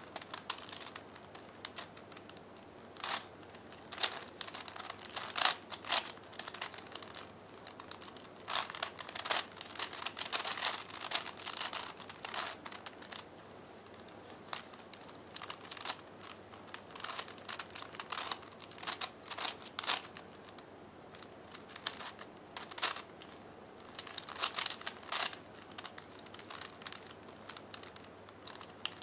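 A V-Cube 5 (5x5x5 puzzle cube) having its plastic layers turned by hand: quick runs of clicks and clacks as the layers snap round, with short pauses between runs.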